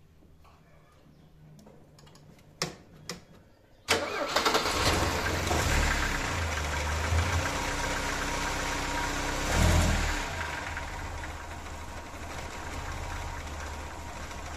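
Carburetted Mercedes-Benz M102 2.0-litre four-cylinder cold-starting with the gas pedal pressed to enrich the mixture. There are a couple of faint clicks, then the engine catches suddenly about four seconds in and runs fast. Its sound swells briefly near the ten-second mark, then settles to a lower, steady idle.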